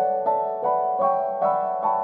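Background music: a gentle piano melody, notes struck about every half second.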